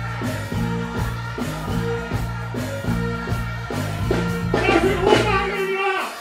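Live dancehall music from a stage sound system: a riddim with a repeating bass line and a performer's vocal over it. Near the end the bass cuts out while the vocal carries on.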